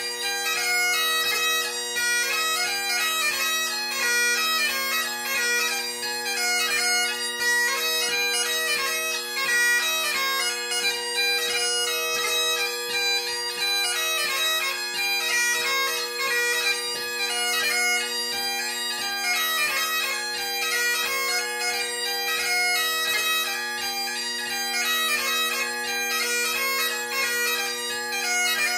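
Great Highland bagpipe played solo: the drones hold one steady chord while the chanter plays a quick, ornamented dance tune from a set of hornpipes and jigs.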